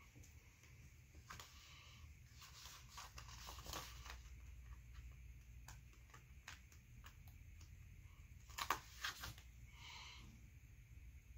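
Faint paper-handling sounds: foil letter stickers peeled off their backing sheet with tweezers and pressed onto a planner page, with scattered light ticks and rustles. The sharpest are two ticks about three-quarters of the way through, over a low steady room hum.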